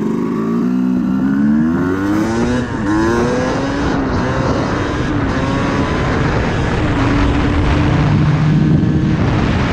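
Yamaha YZ250 two-stroke single-cylinder dirt bike engine under hard acceleration, its pitch climbing and dropping back at each upshift, then holding steady near the end at high speed.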